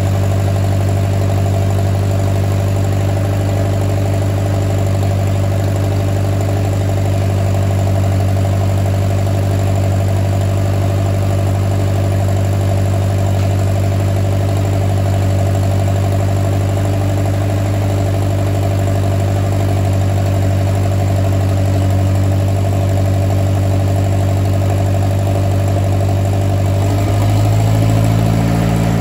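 Oliver 550 tractor's four-cylinder gasoline engine running steadily and smoothly, on its first run in 30-plus years after a new ignition (plugs, points, condenser) and a rebuilt starter and carburettor. Its note shifts near the end.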